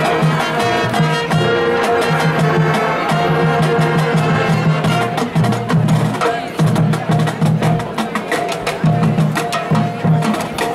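High school marching band playing: brass chords held over a pulsing low drum line. From about five seconds in, quick crisp percussion strikes come thick and fast.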